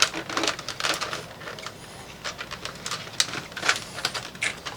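Irregular small plastic clicks and taps from handling keyboard keycaps and parts.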